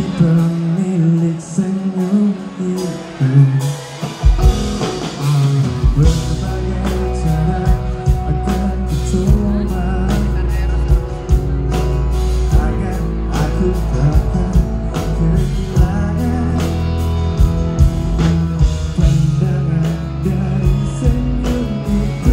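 Live band playing a song, with a singer singing into a microphone over electric guitar and a drum kit. Low notes fill in about four seconds in, and drum hits run steadily throughout.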